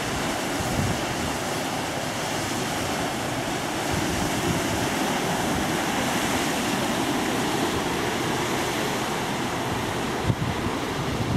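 Steady rushing wash of the cargo ship Sormovskiy 3067's bow wave and wake running along its hull as it passes close, with wind buffeting the microphone and a few low gusts near the end.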